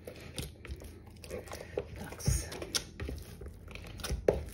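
A hand squeezing and pinching wet sourdough in a plastic tub as salt water is worked into it: irregular sticky squelches and small pops, with a sharper one about halfway and another near the end.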